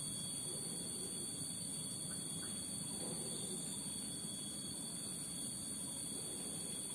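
Steady high-pitched insect chorus, several unbroken tones droning on together, over a faint low murmur.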